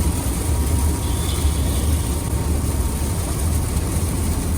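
Steady low rumble of a car driving in a downpour, heard from inside the cabin, with an even hiss of heavy rain and tyre spray over it.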